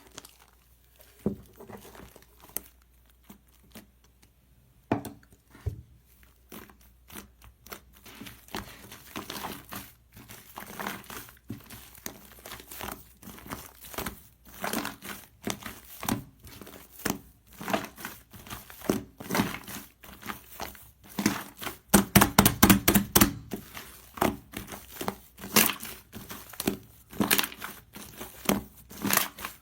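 Crinkly material being crumpled and handled close up: a dense run of quick irregular crackles, growing louder and busier near the end.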